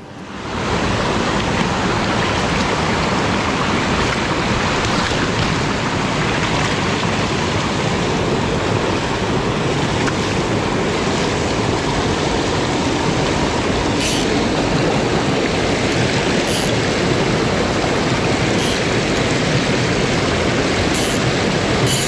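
Mountain stream rushing over rocks and small cascades: a steady, loud rush of white water close by.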